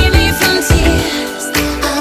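Background pop music with a steady beat and a strong bass.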